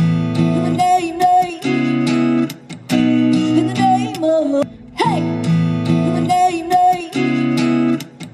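Background music: strummed acoustic guitar chords in a repeating pattern.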